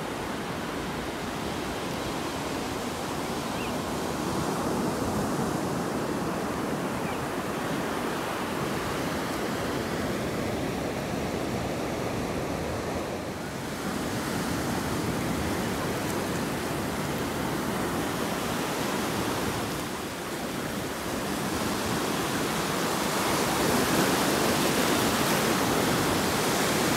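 Atlantic Ocean surf breaking and washing up over the sand, a steady rush that swells and eases, with a louder, hissier wash of foam near the end.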